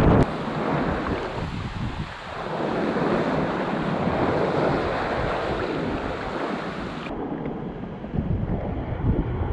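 Wind buffeting the microphone over the rush of seawater along a sailboat's hull while under sail. The sound changes abruptly about seven seconds in, losing its high hiss.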